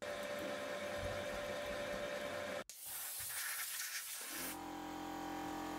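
Drill press cutting a hole through steel bar with a steady whine. After a sudden break, a hiss of compressed air blowing the chips out of the hole, then the drill press motor running with a steady hum.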